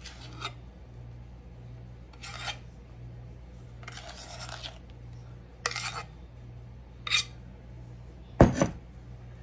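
A kitchen utensil scraping and spreading thick meringue over parchment paper on a baking sheet, in several short, separate scrapes, with a louder knock near the end, over a steady low hum.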